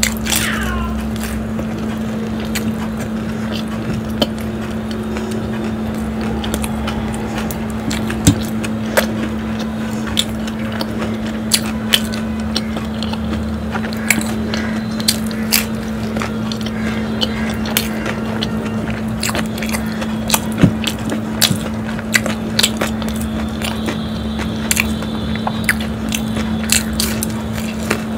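Close-up eating sounds: crisp bites and chewing of a deep-fried samosa, with many short crackles scattered throughout. A steady low hum runs underneath.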